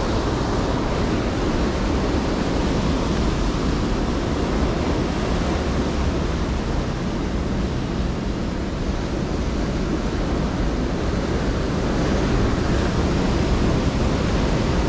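Heavy surf from a 6–8 ft swell breaking on a rocky shore: a steady, unbroken wash of ocean waves, with wind rumbling on the microphone.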